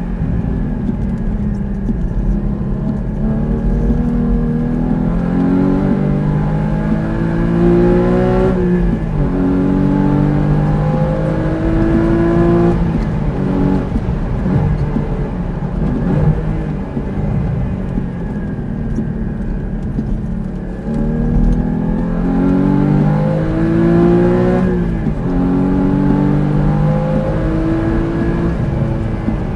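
Porsche sports car's engine heard from inside the cabin at racing speed, revving up through the gears. Its pitch climbs, drops sharply at an upshift and climbs again, eases off in the middle, then pulls up through two more gears near the end, over steady road and wind noise.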